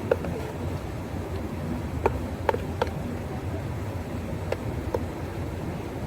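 Cafe counter work: a steady low hum with a few light clinks and taps of cups and utensils scattered through it.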